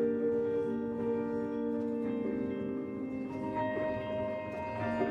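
Native Instruments Una Corda sampled felt piano playing soft held chords with its continuous-style effect on, so the notes sustain instead of dying away. The chord changes about two seconds in and again a little later.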